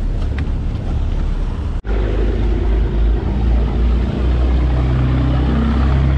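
Boat engine running close by, a steady low drone, broken briefly by a cut about two seconds in; its pitch rises a little in the last couple of seconds.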